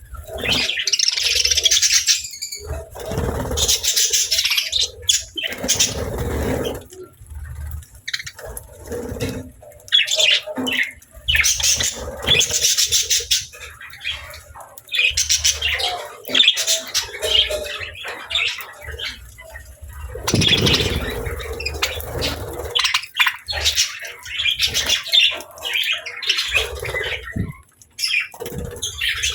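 Pet budgerigars and lovebirds chirping in quick, irregular bursts, several birds calling over one another, with a few dull low bumps among the calls.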